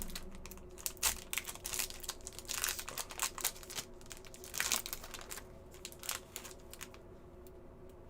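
A hockey card pack's plastic wrapper being torn open and crinkled by hand, with irregular crackles that die down after about seven seconds.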